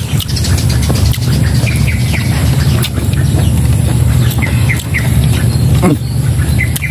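Birds chirping and squawking outdoors, with short calls scattered through and one falling call about six seconds in, over a steady low rumble.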